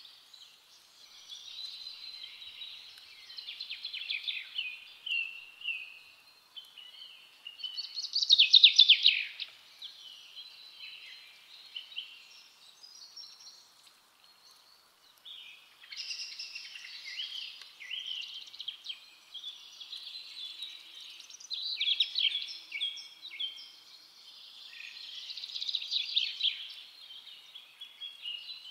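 Small birds chirping and singing in bursts of quick, high, warbling notes, loudest about a third of the way in, with a short lull near the middle.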